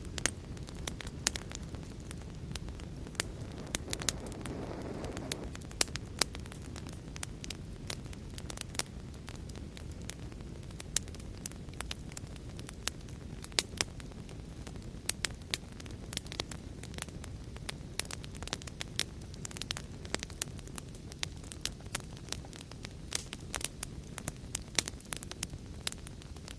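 Wood fire crackling in a fireplace: frequent sharp, irregular pops and snaps over a steady low rumble, with a brief soft swell of lower sound about four to five seconds in.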